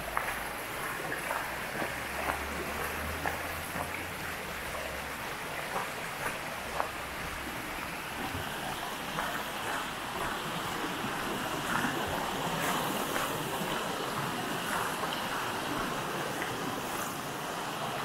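A shallow, rocky forest stream babbling steadily, with footsteps crunching on a gravel path about twice a second. A low rumble sits underneath and fades out about halfway through.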